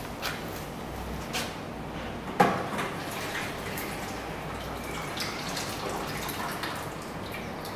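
Commercial utensil washing machine running with water spraying and splashing, and scattered clicks. There is one sharp knock about two and a half seconds in.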